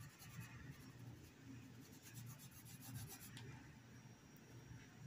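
Faint rubbing and scratching of a paintbrush dabbing fabric paint onto a cloth dish towel.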